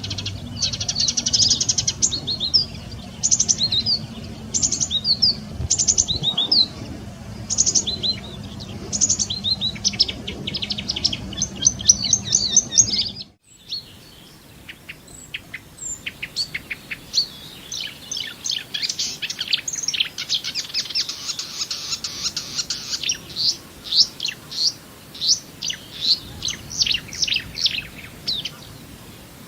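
Marsh warbler singing its fast, varied song of rapid chirps, trills and mimicked notes. About 13 seconds in, the sound cuts abruptly to a second, quieter recording of the same kind of song.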